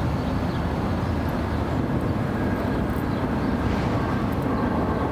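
Steady low background rumble with no distinct events, the kind of outdoor noise that distant traffic gives.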